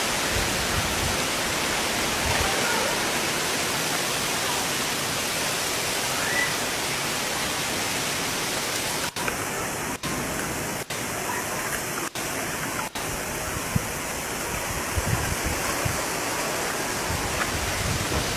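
Heavy rain pouring steadily, with a few low gusts of wind on the microphone. The sound cuts out briefly five times in the middle.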